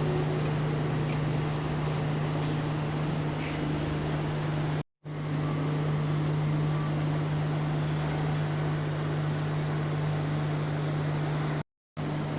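Steady mechanical hum with a constant low tone over an even hiss, cut off briefly twice.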